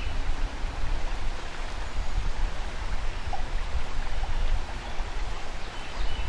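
Steady rush of flowing river water, with a strong low rumble underneath.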